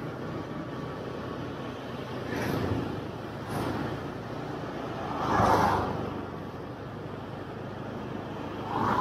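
Road traffic heard from a moving motorcycle: a steady rumble with several vehicles passing close by, the loudest a little past halfway and another at the very end.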